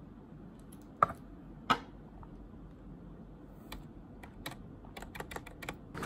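Scattered sharp clicks and taps: two louder knocks about a second in and just before two seconds, then a run of quicker light clicks near the end, over faint room hum.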